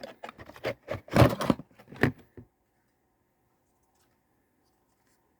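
Handling noise from a boxed toy and its packaging: a quick series of clicks, knocks and rattles, loudest about a second in, that stops about halfway through.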